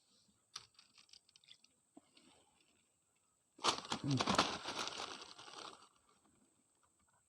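Rustling and crackling handling noise: a few scattered crackles early, then a loud burst of rustling starting about three and a half seconds in and lasting about two seconds.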